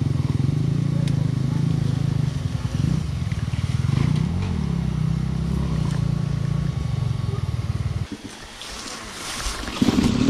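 Enduro dirt bike engine running at low, steady revs, with a brief blip of the throttle about four seconds in; the engine note stops abruptly about eight seconds in, and some scuffling noise follows near the end.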